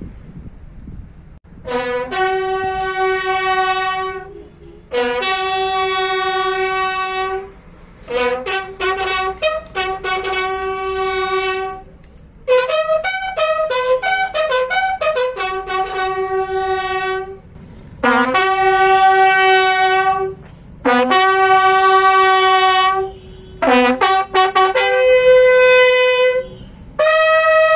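Three military buglers playing a bugle call together: long held notes stepping between a few pitches, with quick runs of short notes in the middle and brief breaks between phrases. The call begins about two seconds in.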